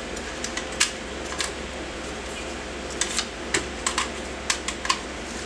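Irregular sharp clicks and light knocks from the stock and battery being handled and fitted at an airsoft rifle's M4-style buffer tube, over a steady low hum.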